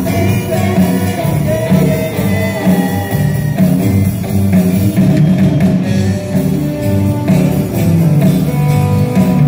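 Live rock band playing: electric guitars, bass guitar and drum kit together at full volume, with no break.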